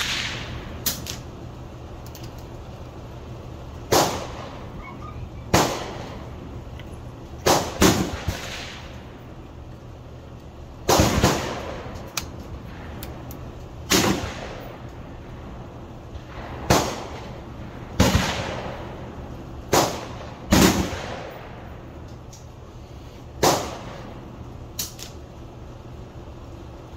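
Gunshots at a shooting range: about fifteen reports at irregular intervals, a few of them in quick pairs, each with a short trailing echo.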